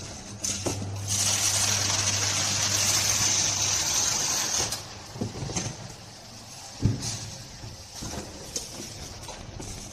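Semi-automatic flap-folding carton sealer running as a carton is fed through, a steady hum with a loud high hiss for about four seconds that then stops. A few knocks of cardboard cartons being handled follow, the loudest about seven seconds in.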